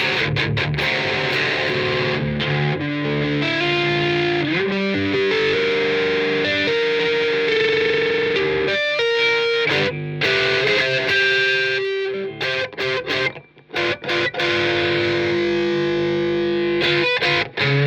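Electric guitar played through a 1812 Custom Carabinier tube amplifier: chords and long held notes, broken by a few short stops past the middle and near the end.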